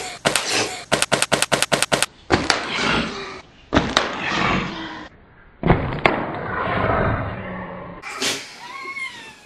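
Rapid breathy bursts of stifled snickering close to the microphone, then a soft smack about four seconds in as a paper plate of shaving cream is pushed into a sleeping man's face. A burst of rustling commotion follows, and there is a short yelp near the end.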